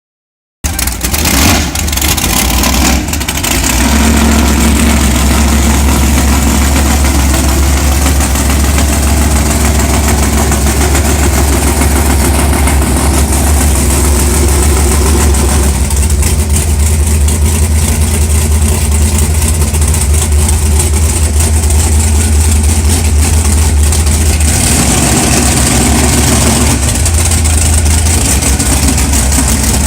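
Methanol-fuelled big-block Chevy V8 in a mega mud truck idling loudly and steadily, its low note shifting briefly about 25 seconds in.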